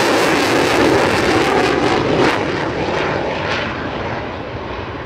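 A delta-wing fighter jet's engine roar, loud with some crackle at first, then fading steadily as the jet flies off into the distance.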